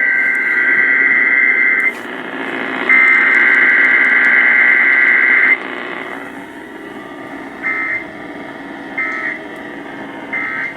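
Emergency Alert System SAME data bursts received over AM radio: two long buzzy two-tone bursts of a Required Weekly Test header, then three short bursts of the end-of-message code about a second and a half apart. Steady radio hiss runs underneath.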